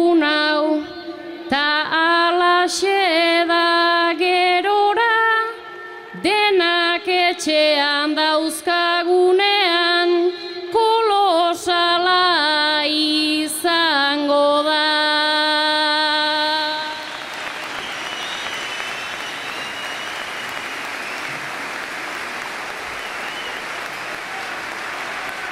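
A single voice singing a melody without accompaniment, in held notes. About two-thirds of the way through the singing stops and a crowd's applause and cheering takes over.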